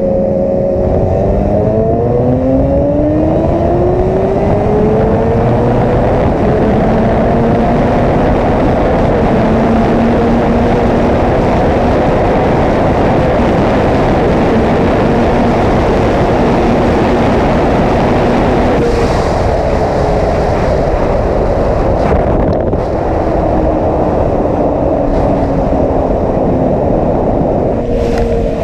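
Yamaha R6 sportbike's inline-four engine at highway speed, heard over heavy wind rush on the mounted camera. Its pitch rises under acceleration in the first few seconds, holds steady through the middle, and falls away in the last third as the throttle is eased off.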